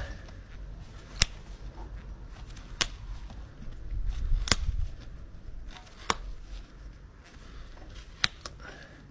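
Hoof knife paring the sole of a Shire horse's hoof: six sharp clicks, roughly one every one and a half to two seconds, as the blade cuts through the horn, over faint scraping.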